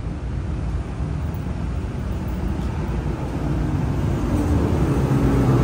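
Street traffic: a vehicle engine running as a steady low rumble, growing louder over the last couple of seconds as it comes closer.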